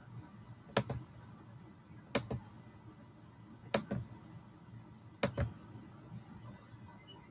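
A computer mouse being clicked: four sharp clicks about a second and a half apart, each followed at once by a softer second click.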